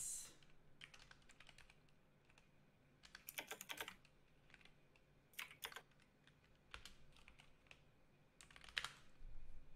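Faint typing on a computer keyboard: several short runs of key clicks with pauses between them.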